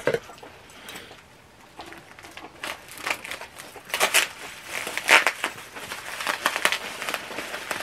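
Packing material crinkling and rustling as an item is unwrapped by hand, in irregular bursts that start about two seconds in.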